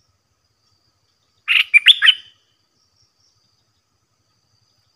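Stripe-throated bulbul giving one short, loud song phrase of about four quick notes, about a second and a half in. A faint insect trill sounds in the background.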